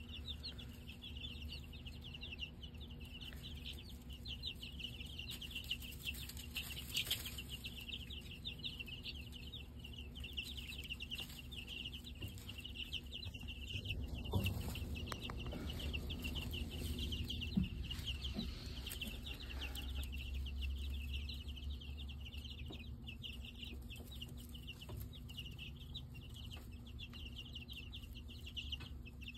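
A brood of young chicks peeping continuously: many short, high peeps overlapping without a break.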